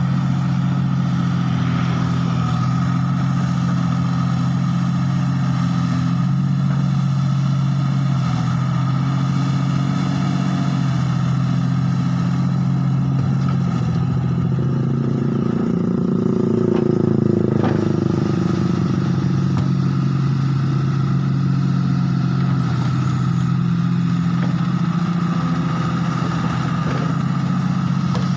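Komatsu hydraulic excavator's diesel engine running steadily under hydraulic load while the arm and bucket dig mud to free the bogged machine. It swells a little louder and changes note a little past halfway, with a brief click.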